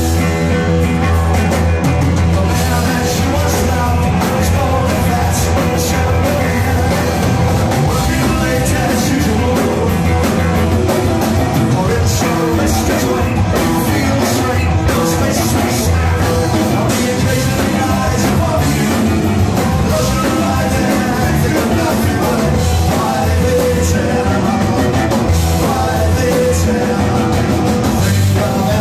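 A live rock band playing: electric guitar, bass guitar and drum kit, with a sung lead vocal, loud and steady.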